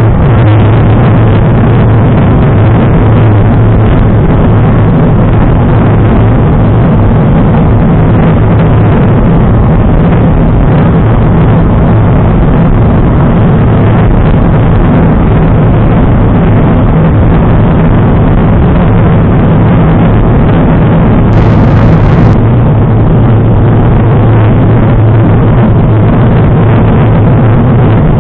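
Steady wind rumble on the microphone of a camera riding on a road bike moving at speed.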